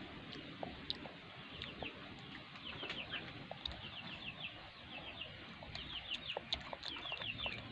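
Birds chirping in quick runs of three to five short, high, falling notes, repeated throughout, with a few faint clicks.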